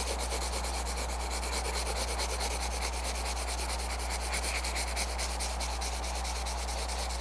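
Colored pencil shading on paper: rapid, even back-and-forth strokes scratching steadily, several a second.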